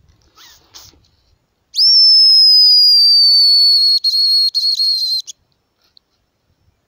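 Homemade hazel grouse call blown close by: one thin, high, loud whistle of about three and a half seconds that slides slightly down in pitch and breaks into a few short stutters at its end, imitating a hazel grouse's whistle to lure a bird in. Faint rustling comes just before it.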